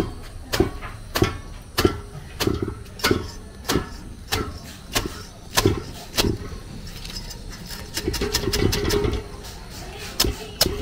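Hand broom of bundled stalks beating cooked jute leaves (ewedu) in an aluminium pot, mashing them into the soup: the bristles strike the pot at a regular beat, a little under two a second. About seven seconds in, this turns into a quicker, denser whisking for a couple of seconds, followed by two last knocks near the end.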